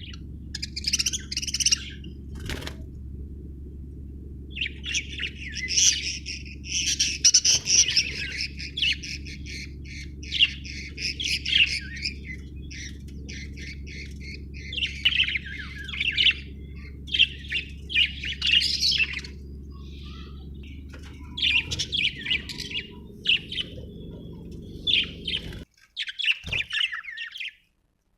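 Budgerigar chirping and chattering in many quick bursts of high calls, with short pauses between runs. A steady low hum sits underneath and cuts off near the end.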